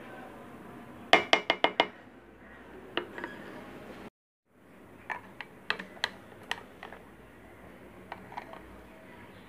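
A spatula knocking and scraping against the inside of a blender jar while stirring whipped cream. There is a quick run of about six sharp taps a second in, then scattered knocks.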